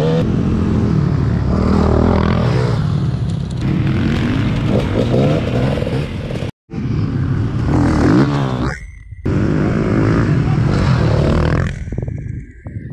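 Several enduro dirt bikes racing on a dirt track, their engines revving up and down as riders accelerate and shift. The sound breaks off suddenly about six and a half seconds in and dips again shortly after, and is quieter near the end.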